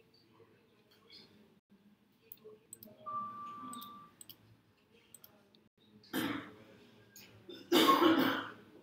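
Scattered computer mouse clicks. A steady beep lasts about a second near the middle, and two short noisy bursts come near the end, the second louder.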